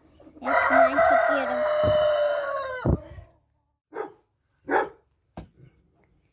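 A rooster crowing once: a long call of about two and a half seconds that drops in pitch at the end. A few short knocks follow.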